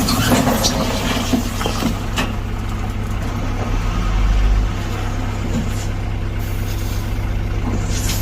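Excavator's diesel engine running steadily under work, with scattered knocks and scrapes; its low note swells briefly about four seconds in.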